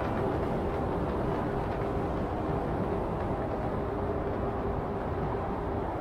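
Car driving at steady speed through a road tunnel: continuous tyre and road noise with the engine's drone and a steady hum underneath, even in level throughout.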